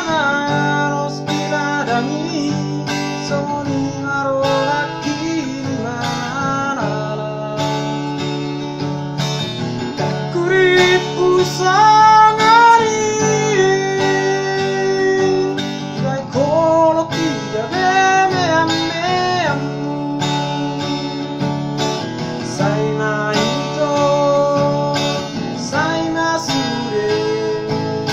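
A man singing a Batak-language song to his own strummed acoustic guitar, the voice gliding in long sung phrases over steady chords.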